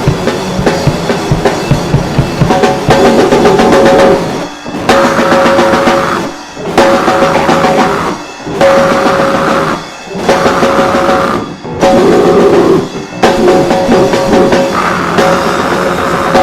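A band playing music on drum kit and guitar. About four seconds in it starts breaking off briefly about every two seconds, with a held note between the stops.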